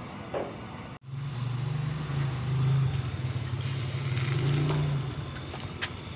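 A steady low engine hum, as of a motor vehicle running nearby, starting about a second in and fading near the end. Over it come a few light clicks and knocks as leafy greens are pushed into an aluminium pot of soup.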